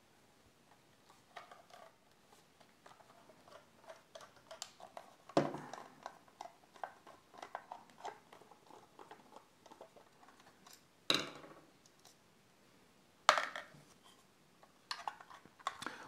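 Small clicks and scrapes of an Allen-key screwdriver working the screws of a small Fosi Audio V3 amplifier's case, and of the case being handled. Three sharper knocks, a little over five seconds in, about eleven seconds in and about thirteen seconds in, as the case or the tool is knocked against the table.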